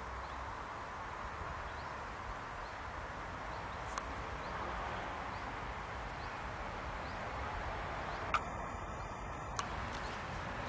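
Steady outdoor rushing noise, with faint short high chirps repeating about every three-quarters of a second and a single click about four seconds in.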